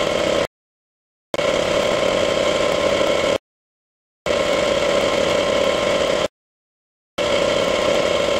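A steady machine running sound with a strong mid-pitched hum, cut into blocks of about two seconds by abrupt gaps of dead silence, so that it stops and restarts about every three seconds.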